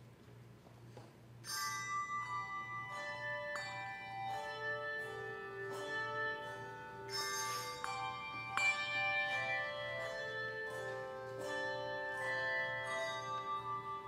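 Handbell choir playing a hymn: many bells struck and left ringing together in chords, entering about a second and a half in after a near-quiet start.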